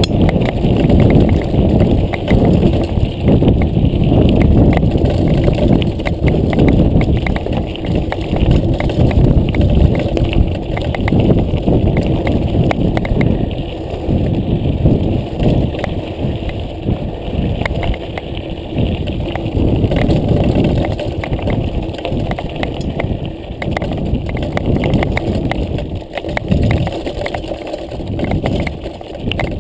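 Mountain bike rolling fast over a loose, stony gravel track: a steady crunch of the tyres, with constant rattling and knocking from the bike as it jolts over the stones.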